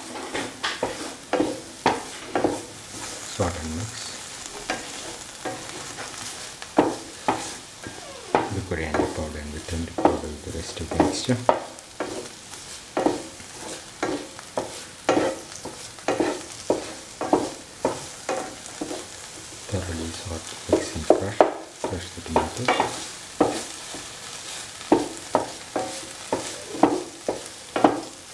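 Spatula stirring and scraping a thick ground-coconut, shallot and tomato masala as it fries in oil in a pan. Repeated scrapes come about one to two a second over a steady sizzle.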